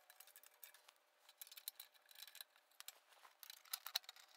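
Faint, quick clicks and taps of plastic and metal as an accessory tray is fitted onto a telescope tripod's leg spreader, with a few louder clicks near the end.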